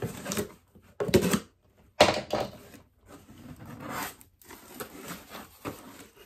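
Packaging rustling and tearing as a delivery package is opened by hand, with sharper, louder bursts about one and two seconds in.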